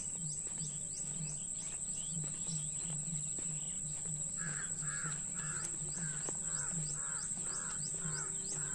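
A crow cawing in a regular series, about two caws a second, starting about halfway through. Under it are a steady high insect drone with rapid high chirps and a low, regular throbbing.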